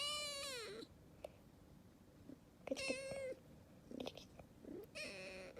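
Young calico kitten meowing: three short, high meows, one at the start, one about three seconds in and one near the end.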